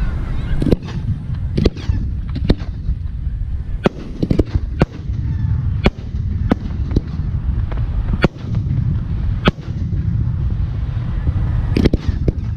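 Fireworks aerial shells bursting in quick, irregular succession, a sharp bang about every second and sometimes two close together, over a continuous low rumble.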